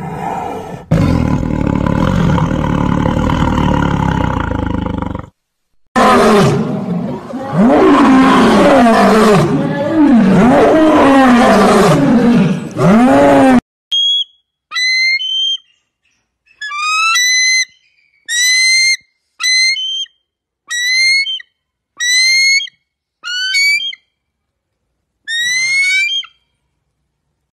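A run of wild animal calls. First comes a big cat roaring, then a passage of loud, arching, drawn-out calls. These are followed by about ten short, high calls, each rising in pitch, spaced about a second apart.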